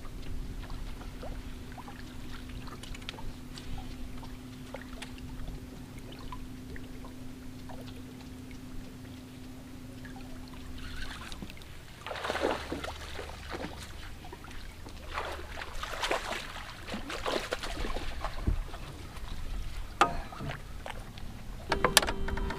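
An electric trolling motor hums steadily, then stops about eleven seconds in; a hooked bass then splashes and thrashes at the surface for several seconds as it is reeled in, with a sharp click near the end.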